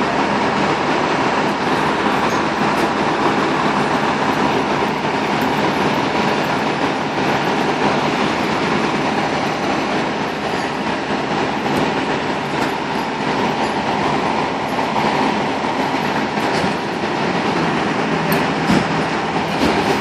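Diesel engines of a fire engine and ladder truck running at idle, a loud steady drone without a break.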